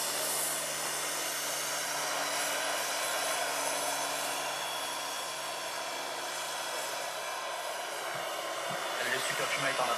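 Turbine engine and rotor of a large radio-controlled scale AS-332 Super Puma model helicopter in flight: a steady whine over a rushing hiss.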